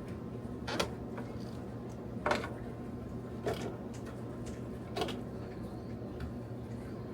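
Four brief clicks and knocks, roughly a second and a half apart, from hands working at the pulled-out stereo head unit and its wiring, over a steady low hum.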